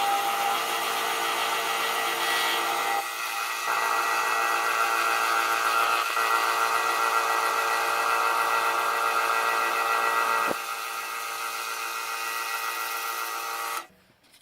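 Wood lathe running, spinning a wooden pipe handle with a steady motor hum whose loudness shifts a few times. It cuts off suddenly near the end.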